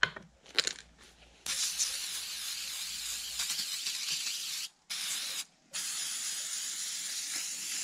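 Aerosol can of spray adhesive hissing as it sprays: one long spray of about three seconds, a short burst, then another long spray.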